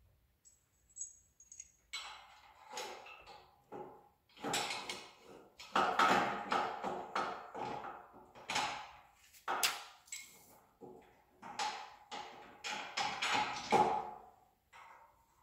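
Metal suspension hardware (bolts, caster shims and a cross shaft) clinking, scraping and rattling irregularly as it is handled and fitted by hand. The first two seconds or so are nearly quiet.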